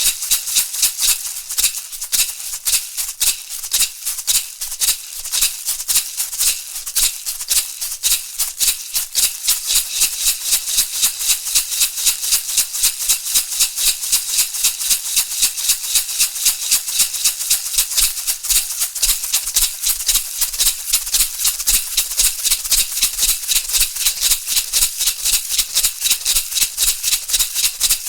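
Shamanic hand rattle shaken in a steady rhythm of about three shakes a second, each shake a bright, crisp swish of seeds or beads. The beat is slightly uneven at first and settles into an even pulse after about ten seconds.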